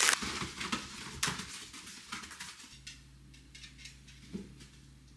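Plastic snack bag crinkling and crackling as it is pulled open and handled, dying away after about two and a half seconds. Then faint room tone with one small knock.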